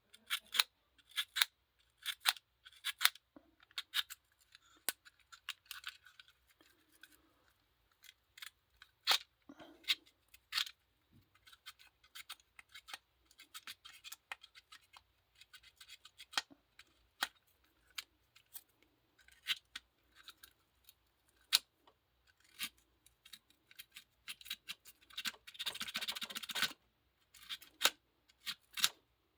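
Fingernail file scraping the metal contacts of a GFCI outlet in short, irregular strokes with small clicks, and one longer continuous stretch of scraping near the end. The filing takes off burn pits left by arcing, which kept the contacts from touching well and made the outlet spark.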